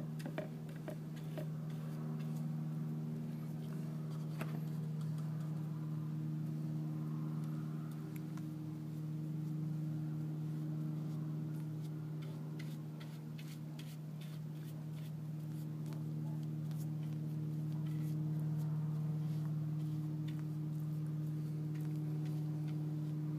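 A steady low hum throughout, with scattered faint ticks and taps of a bristle brush dabbing epoxy onto wooden scarf joints.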